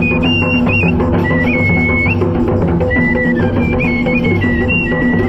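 Pahadi folk tune played live on a small wooden side-blown flute, a high melody stepping between held notes, over steady drum beats.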